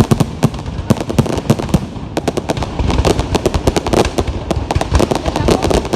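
Fireworks going off in a dense, continuous barrage: many rapid, irregular bangs and crackles overlapping, several each second.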